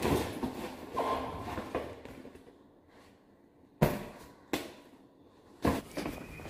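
Clothes and a backpack's fabric rustling as they are stuffed into the bag, then three sharp knocks under a second apart near the end.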